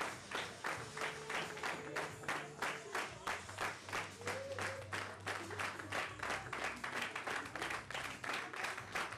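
Audience clapping in unison, a steady rhythmic beat of about four claps a second.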